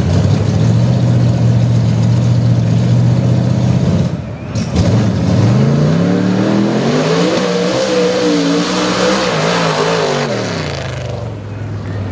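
A mud bog truck's big engine idling, then revving up about five seconds in, holding high with a wavering pitch, and dropping back to idle near the end.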